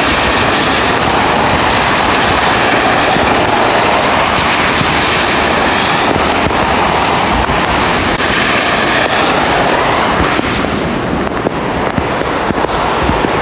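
Fast-flowing river water rushing steadily and loudly, with a fine crackle in it; the hissing top thins slightly near the end.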